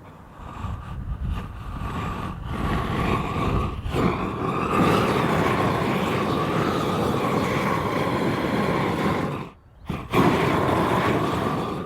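Large propane torch burning, a steady jet-like rush with a faint whistle in it, scorching wood for shou sugi ban. It builds up over the first few seconds and drops out briefly near the end before coming back.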